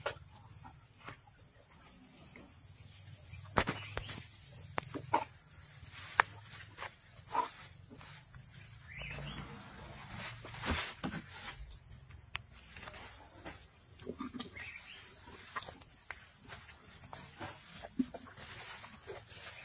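Asian elephant feeding at close range, with scattered sharp crunches and snaps as it eats sweet potatoes and tears at greenery, over a steady high drone of insects.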